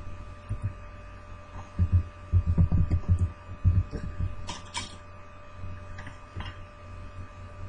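A steady electrical hum, with a cluster of low thumps about two to four seconds in and a couple of sharp clicks soon after.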